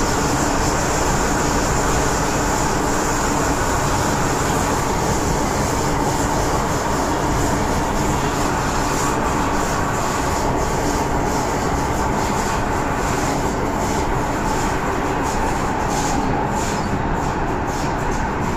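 MTR M-train electric multiple unit running at speed through a tunnel, heard from inside the train: a steady, loud rumble of wheels and running gear with a faint steady tone over it.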